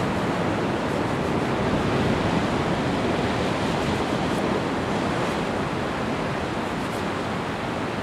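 Steady rush of ocean surf breaking on a rocky shore.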